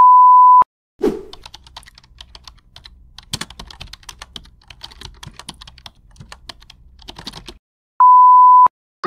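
A steady electronic beep of under a second, then a thump and about six seconds of rapid computer-keyboard typing clicks, then a second beep like the first. Video-editing sound effects for a text-card intro.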